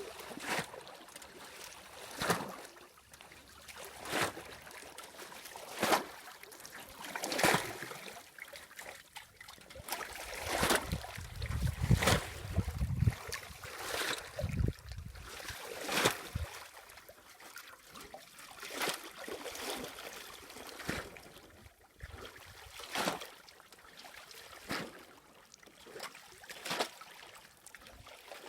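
Water splashing and sloshing in a slow, even rhythm, a stroke about every second and three-quarters, with trickling water between the strokes. A low rumble runs for a few seconds near the middle.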